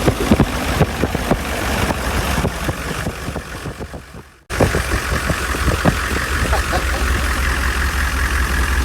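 Humvee diesel V8 engine running, with scattered knocks and rattles over the steady low rumble. The sound fades and drops out about four and a half seconds in, then the engine runs on steadily with a faint whine above it.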